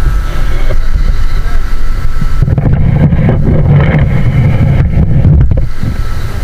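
Strong wind buffeting the microphone: a loud, low rumble that swells to its strongest from about two and a half seconds in to near the end.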